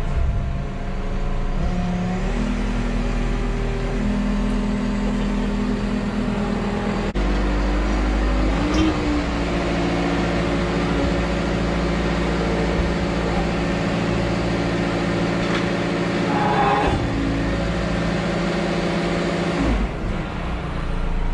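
Manitou MRT rotating telehandler's diesel engine and hydraulics running under load while the four stabiliser legs extend. The engine note shifts in steps several times as the hydraulic load changes, and it settles shortly before the end, when the legs are fully out.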